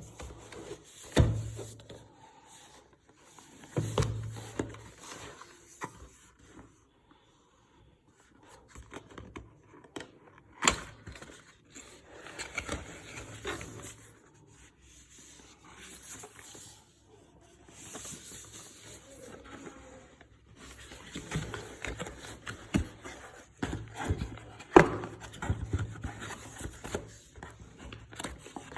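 Handling of a CPU retail box and its packaging: irregular scraping and rubbing with scattered sharp knocks and clicks, the loudest about a second in and near twenty-five seconds in.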